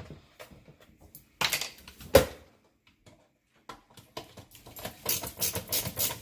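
Rapid small clicks and taps of a screwdriver working screws out of a dishwasher's filter housing, after a couple of sharper knocks about one and a half and two seconds in.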